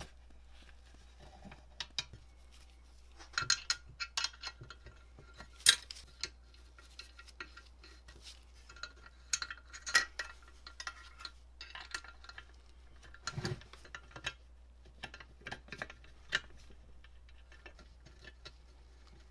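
Small metal parts of a Signatrol Model 30 electromechanical light chaser clinking and knocking as its steel frame, shaft and cams are fitted back together by hand: irregular light taps and clinks with a brief ring, in small clusters.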